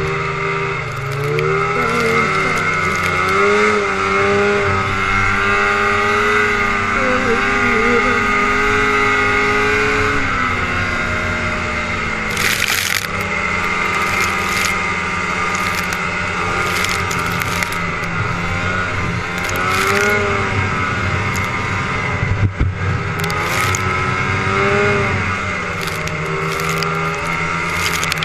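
Old Polaris 450cc two-stroke snowmobile engine running under way through deep snow. Its pitch climbs over the first few seconds and holds, drops about ten seconds in, and then rises and falls twice more. Several brief bursts of hiss come through the middle.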